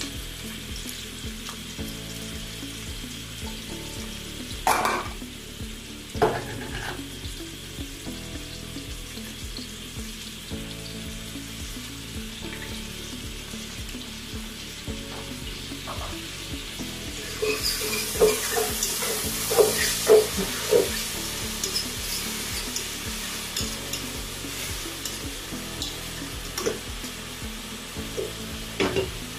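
Chopped onions frying in oil in an aluminium pot, with a steady sizzle. Two short knocks come a little after the start. For a few seconds past the middle the sizzle grows louder, with clicks and scrapes as a utensil stirs the onions.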